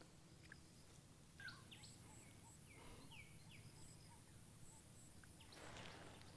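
Faint outdoor quiet with a few short bird chirps in quick succession in the first half, and a soft rustle near the end.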